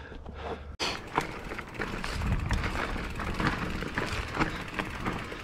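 Mountain bike riding over rocky trail: a steady rush of tyre and wind noise with many sharp knocks and rattles as the bike jolts over the rocks. The sound drops out for an instant just under a second in.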